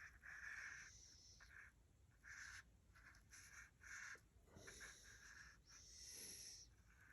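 Faint swishing of a paintbrush, several short separate strokes as paint is brushed on.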